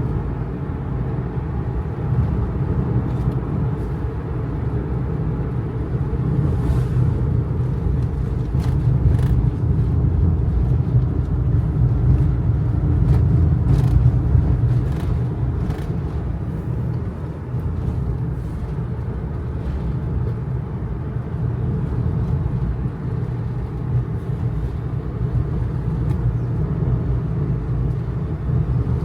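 Kei truck driving along a mountain road: a steady low engine and road rumble that swells a little partway through, with a few faint ticks and rattles.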